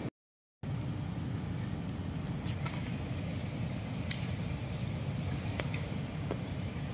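Steady low hum and murmur of a large mosque prayer hall, with a few sharp clicks in the middle. The sound drops out completely for about half a second near the start.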